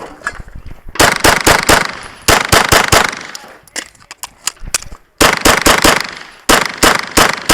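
Rapid pistol fire from an optic-equipped competition handgun during a timed stage: four quick strings of about four to six shots each. The first two strings come about half a second apart, a pause of about two seconds follows, and the last two strings are again about half a second apart.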